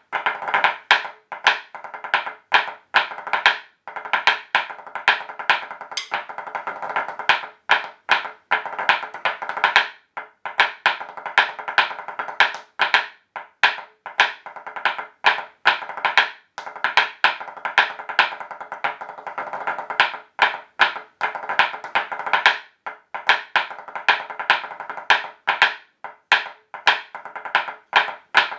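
Rapid sharp taps struck in a hornpipe rhythm with rolls, in phrases broken by short pauses about every six seconds.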